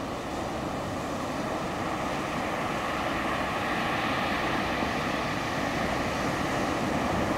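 Ocean surf: waves breaking and foaming in a steady rush that grows gradually louder.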